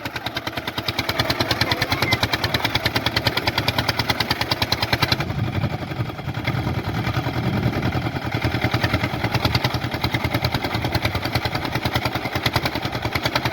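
Swaraj 855 tractor's diesel engine running steadily with an even, fast beat, its tone shifting slightly about five seconds in.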